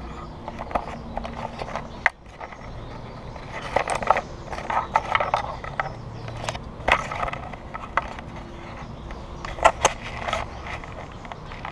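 Close handling noise of a body-worn action camera being fitted and adjusted: irregular clicks, knocks and rubbing against the mount and clothing, over a low rumble, with two sharp clicks near the end.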